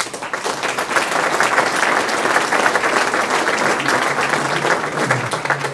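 Audience applauding: dense, steady clapping that starts abruptly and begins to die down near the end.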